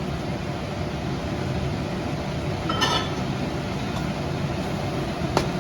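A steady mechanical hum, like a kitchen fan, with a short clink of a utensil on a pan about three seconds in and a sharp click near the end.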